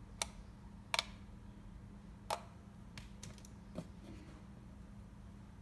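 Sharp clicks and taps from a plastic wireless doorbell unit being handled and its buttons pressed. Three louder clicks come in the first two and a half seconds, then a few fainter ticks, over a steady low electrical hum; no chime sounds.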